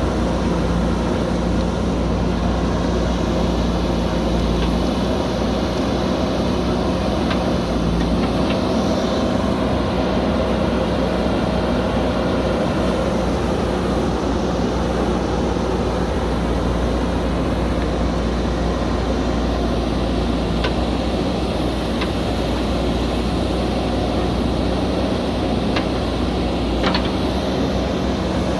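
Diesel engine of a JCB backhoe loader running steadily at work, with a few faint knocks.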